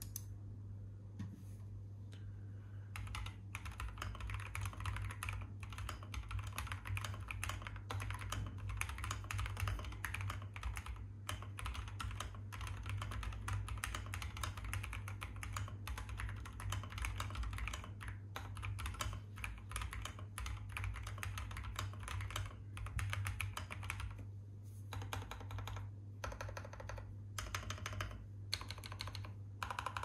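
Typing on an Akko SPR75 spring-mounted mechanical keyboard with lubed Wuque Studio Morandi switches, an FR4 plate and ABS doubleshot MDA-profile keycaps: a fast, steady run of keystrokes from a few seconds in, breaking into short bursts with pauses near the end. A steady low hum sits underneath.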